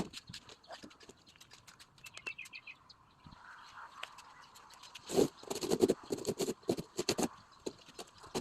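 A run of irregular clicks and knocks, with a brief series of high chirps about two seconds in and louder, denser knocking from about five seconds on.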